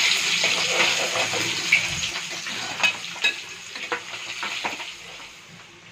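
Rohu fish pieces sizzling as they shallow-fry in hot oil in an aluminium kadai, with a few sharp clicks of a metal spatula against the pan partway through. The sizzle fades toward the end.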